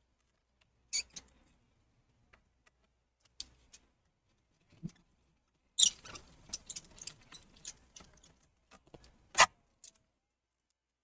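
Small metallic clicks and scrapes of a Phillips screwdriver working the screws out of a laptop's bottom case. There is a rattling run of clicks about six seconds in and a sharp tap near the end.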